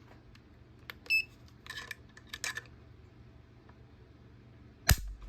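A trigger pull gauge beeps once about a second in, followed by a few soft handling clicks. Near the end the K31 rifle's trigger breaks and its firing pin snaps forward on the empty chamber with a single sharp dry-fire click.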